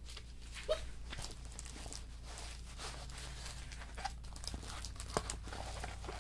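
Faint rustling and crinkling of a diamond painting kit's packaging being handled, with scattered light taps.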